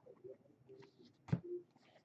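Baseball cards being handled from freshly opened packs: faint shuffling, with one sharp snap a little past halfway.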